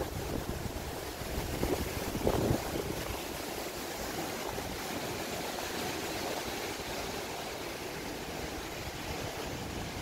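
Strong gusting wind rushing steadily, with low buffeting on the microphone in the first few seconds and a stronger gust a little over two seconds in.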